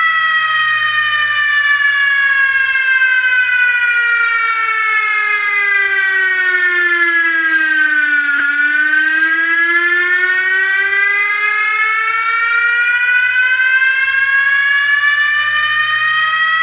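Fire truck siren wailing in one slow sweep: its pitch falls steadily for about eight seconds, then rises again just as steadily. A faint low hum runs beneath it.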